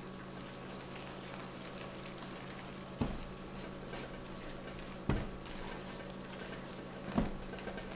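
Spatula stirring soft dumpling dough of flour, shortening and hot chicken broth in a stainless steel mixing bowl: quiet scraping strokes, with three soft knocks about two seconds apart, over a steady low hum.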